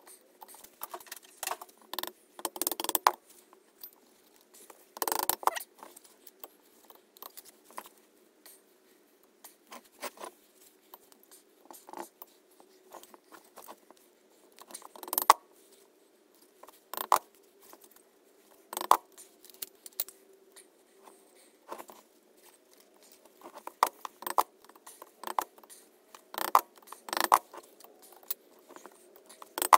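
Irregular metallic clicks, knocks and light scrapes from the BSA Fury's alloy twin-cylinder barrel block being handled and worked down over the pistons onto the crankcase, with a faint steady hum underneath.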